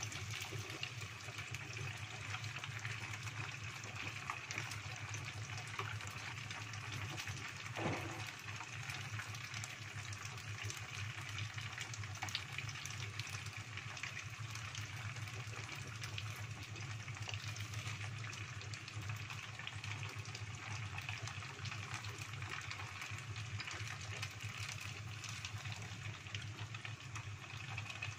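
Egg-coated tofu sempol on wooden skewers deep-frying in a small pot of hot oil: a steady sizzle with fine crackling, and a single brief knock about eight seconds in.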